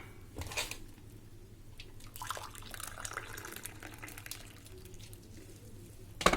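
Warm water poured from a cup into a bowl of jelly powder and sugar, a liquid pour that is strongest about two to three seconds in, with a few short knocks near the start and end.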